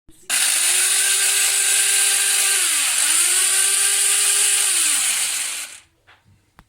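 Fakir hand blender motor running at high speed with a loud whir; its pitch sags about two and a half seconds in, spins back up, then falls away as the motor winds down and stops near the end.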